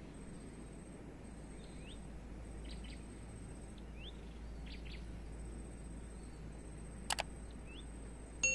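A bird gives short rising chirps about once a second over steady low outdoor background noise. About seven seconds in comes a sharp double click, and at the very end a bright ringing ding, the sound effect of a subscribe-button pop-up.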